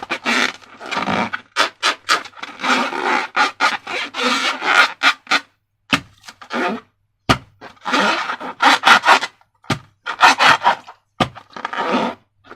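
Slime and rubber balloons being worked by hand: irregular bursts of rubbing and scraping, with short pauses between.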